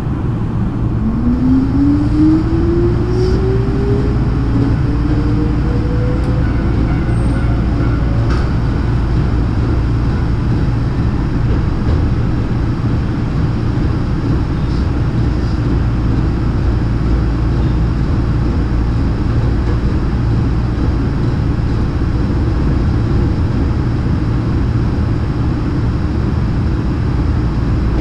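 Hankyu electric train pulling away and gathering speed: the traction motor's whine climbs steadily in pitch over the first eight seconds or so, then fades into a steady rumble of wheels on rail.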